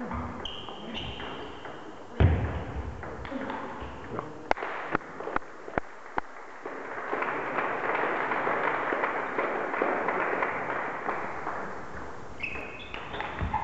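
Table tennis play: a heavy thump about two seconds in, then a run of five sharp clicks of the celluloid ball striking table and bats, coming about every half second. The clicks give way to about five seconds of hand clapping from the spectators, which fades out near the end.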